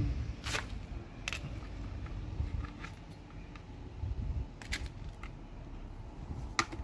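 Several sharp clicks and taps of plastic parts being handled as the wires are fed through the plastic base plate of an outdoor wall light and the lamp holder is fitted, over a low rumble.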